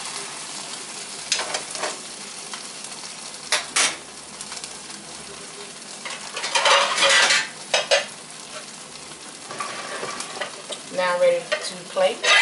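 Hamburger buns toasting in butter in a skillet, a steady sizzle. It is broken by a few louder rattles and knocks from handling, the loudest about halfway through and another cluster near the end as the pan lid is handled.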